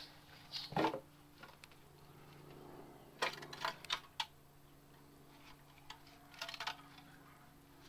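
Light clinks and knocks as the aluminium valve cover of a Mercedes M110 engine is worked loose from the cylinder head and lifted, coming in small clusters about a second in, around three to four seconds in, and again about six and a half seconds in.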